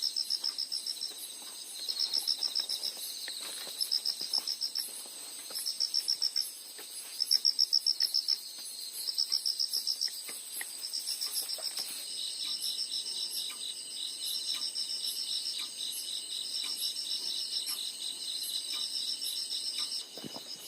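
Chorus of crickets and other insects: pulsed trills about a second long repeat every second and a half over a steady high-pitched ringing. About twelve seconds in, the pattern changes to a steadier, faster-pulsing trill.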